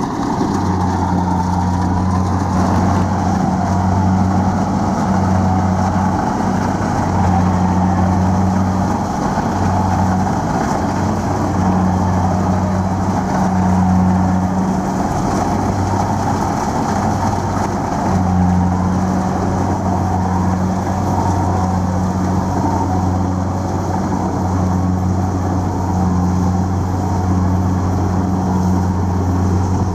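Kubota DC-70 Plus combine harvester's diesel engine running steadily as it harvests rice, with a low hum that comes and goes every second or two.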